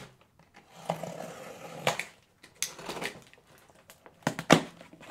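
Merchandise and packaging being handled in a box: rustling and a few scattered knocks and clatters as items are lifted out, the sharpest knock a little after four seconds in.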